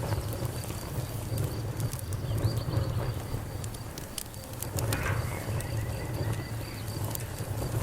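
Wood campfire crackling with scattered sharp pops and snaps over a low steady rumble. Crickets chirp in a fast pulsing high trill behind it.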